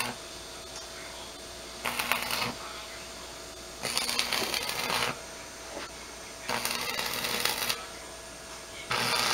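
Electric arc welding on steel rebar: four short bursts of crackling arc, each a second or less, with pauses between as the welder strikes and breaks the arc for a series of short welds.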